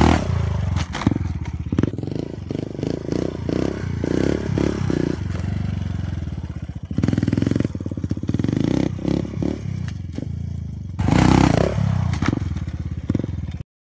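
Dirt bike engine revving as the bike rides past, loudest as it passes close at the start and again about eleven seconds in. The sound cuts off suddenly near the end.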